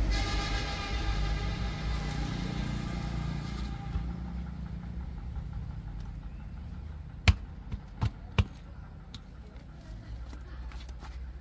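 A vehicle engine running, its sound fading away over the first few seconds and leaving a low rumble, then three sharp knocks in quick succession.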